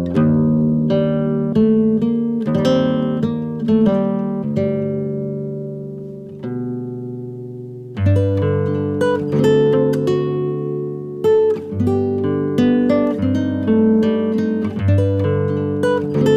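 Background music of plucked acoustic guitar notes and chords. About halfway through, a chord rings out and fades before the picking starts again.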